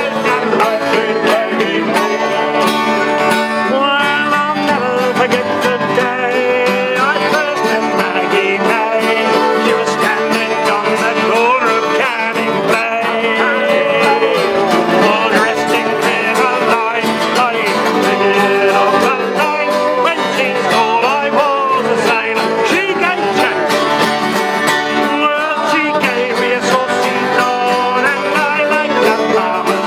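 Group of men singing a sea shanty together to strummed acoustic guitars, a mandolin and a button accordion, steady and continuous.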